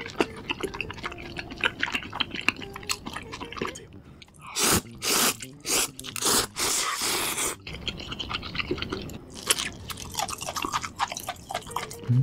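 Close-miked chewing of a mouthful with small wet clicks, then loud slurping of ramen noodles from spicy broth in a few long pulls about four seconds in, then more wet chewing.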